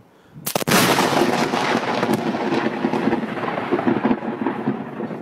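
Thunderclap from a very close lightning strike: a sudden sharp crack about half a second in, then loud crackling, rumbling thunder that carries on.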